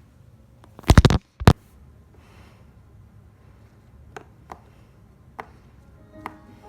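A fidget toy being worked by hand: a loud rapid cluster of snaps about a second in, one more sharp snap half a second later, then a few soft scattered clicks.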